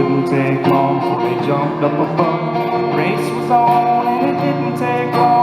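Country song played live on guitars, with plucked notes and a held melody note about three and a half seconds in.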